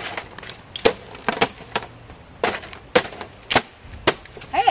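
Sharp cracking knocks, about a dozen at irregular intervals, as a small metal-cased box is jumped on, stomped and broken apart. A short shout near the end.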